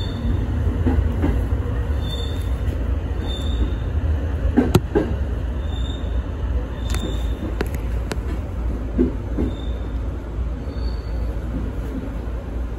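Electric commuter train running, heard from inside the driver's cab: a steady low rumble with a few sharp clicks and knocks, and short high squeaks every second or two.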